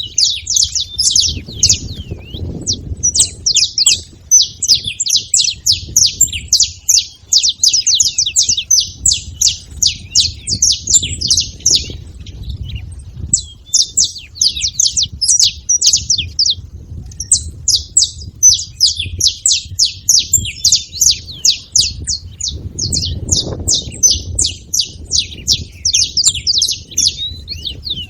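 A flock of saffron finches chirping noisily, many short sharp calls overlapping in a fast, continuous chatter with a brief lull about halfway, over a low rumble.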